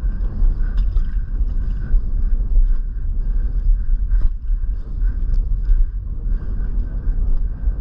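Wind buffeting the microphone on a small fishing boat at sea: a steady, fluttering low rumble, with a few faint clicks.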